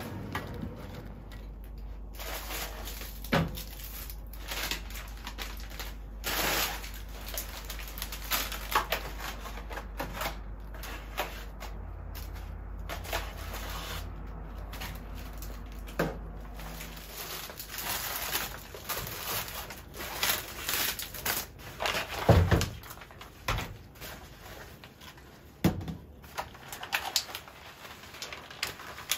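Plastic shopping bag rustling and crinkling as groceries are lifted out of it, with irregular knocks and clicks of packages and containers set down on a kitchen counter.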